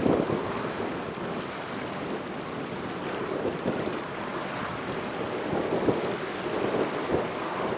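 Wind buffeting the microphone: a steady rushing noise with gusty swells, strongest at the start.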